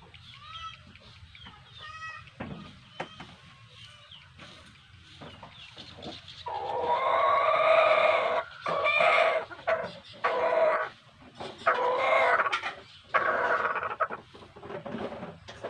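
A rooster crowing loudly several times in a row, starting about six seconds in, with faint bird chirps before it.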